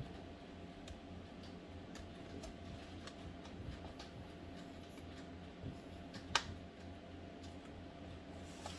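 Faint clicks and ticks of an HP Pavilion 15 laptop's plastic cover being worked loose from its clips, with one sharper click about six seconds in.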